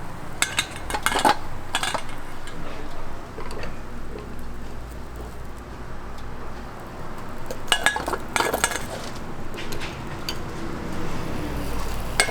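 Metal kitchen utensils and cookware clinking and clattering in two short flurries, near the start and again about eight seconds in, with a few single clinks between them, over a steady low hum.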